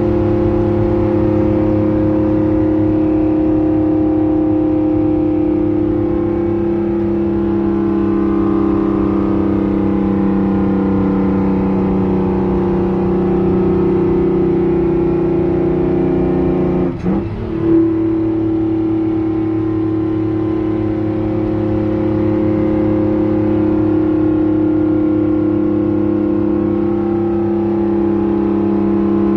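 6-71 Detroit Diesel two-stroke inline-six pulling a GMC Brigadier truck down the road, heard from inside the cab. The engine note sags slowly, then breaks off briefly about seventeen seconds in and comes back slightly higher, as with a gear change on the 10-speed Roadranger.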